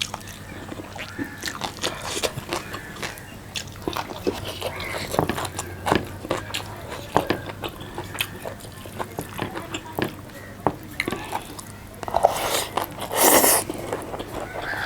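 A person chewing and biting food close to the microphone, with many small wet clicks and smacks. About twelve seconds in comes a louder noisy sound lasting about a second.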